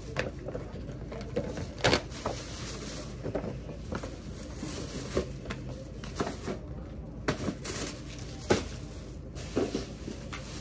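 Scattered rustles and light knocks of shopping items being handled and sorted, a few sharper clacks among them, over a faint steady low hum.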